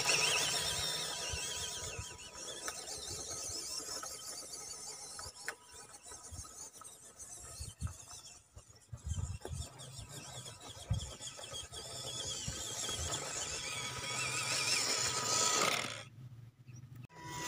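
Small electric RC crawler's 260 brushed motor and geared drivetrain whining, the pitch wavering with throttle; it fades as the truck drives away and grows louder again as it comes back, then cuts out for about a second near the end.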